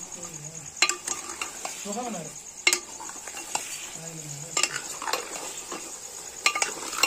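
Steel ladle stirring raw mutton pieces through hot oil and onions in an aluminium pot, with a steady sizzle of the meat starting to fry. The ladle clinks and scrapes against the pot sharply half a dozen times.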